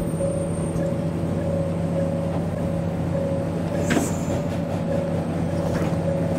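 Diesel locomotive engines running at a steady speed, with a single sharp click about four seconds in.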